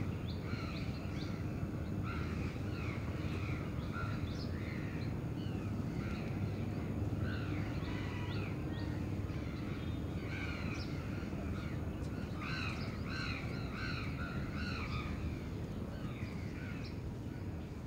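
Crows cawing over and over, several calling in quick succession, with the calls thickest about two-thirds of the way through. Underneath runs a steady low city rumble.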